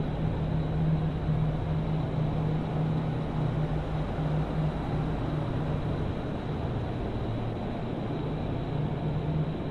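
Steady low hum and hiss of outdoor background noise picked up by a doorbell camera's microphone, with no distinct events.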